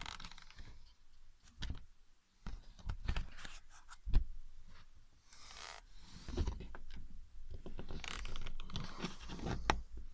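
A homemade rubber-sheet cat flap being pushed and handled, giving irregular scraping and rustling with scattered knocks. The sharpest knock comes about four seconds in.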